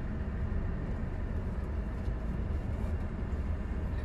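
Steady low rumble of a Jeep Meridian SUV's diesel engine and tyres, heard inside the cabin as it moves slowly.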